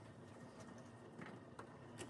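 Near silence, with a few faint soft plops and taps as potato chunks are dropped by hand into a pot of simmering broth.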